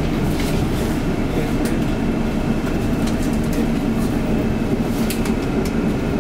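PCC tram running on its rails: a steady low rumble of wheels and running gear with a constant hum, and sharp clicks now and then from the track.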